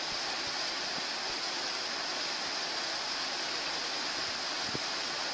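River rapids rushing steadily, a continuous hiss of whitewater.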